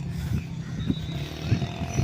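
A small engine or motor running steadily with a low hum, with a few short knocks about half a second apart.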